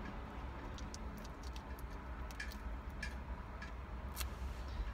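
Soft eating sounds: scattered small mouth clicks and lip smacks while licking a condiment packet and a plastic fork, over a steady low rumble.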